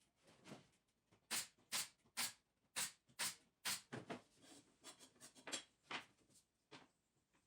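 A run of light, sharp knocks, irregular, about two a second.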